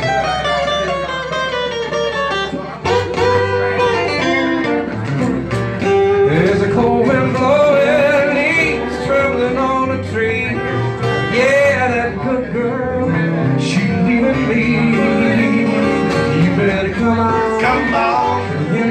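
Small acoustic band playing a blues number live: acoustic guitars strummed and picked over an upright bass, with a lead line that slides up and down in pitch.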